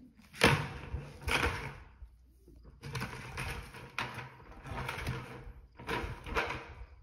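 Plastic bucket being knocked over and dragged on a rope across the arena's dirt footing, scraping and rattling in three stretches, with a sharp knock about half a second in.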